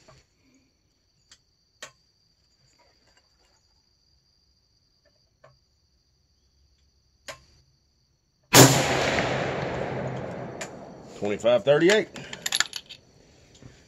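A single 6.5 Creedmoor rifle shot about eight and a half seconds in, a handloaded 140-grain round fired over a chronograph. The loud report dies away over about two seconds, and indistinct voices follow.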